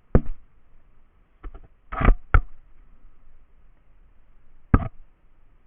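Airsoft gun firing single shots, a handful of sharp pops at irregular intervals, two close together about two seconds in.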